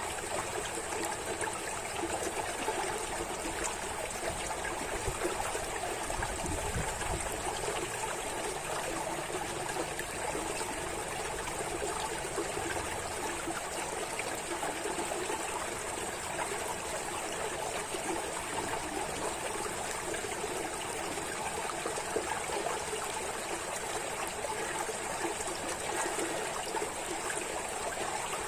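Running water, a steady, unbroken flow with no change in level.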